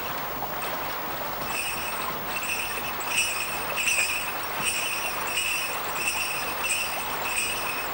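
Small bells jingling in a steady rhythm about twice a second, coming in about a second and a half in, over the continuous rush of flowing water.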